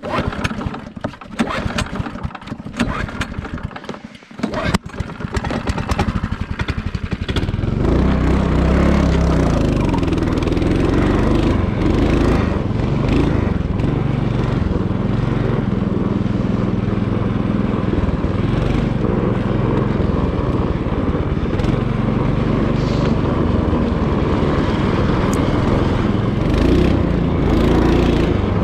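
Irregular crunching and clicks for the first several seconds, then a motorized snowboard's small engine running steadily from about seven seconds in, its pitch shifting up and down with the throttle.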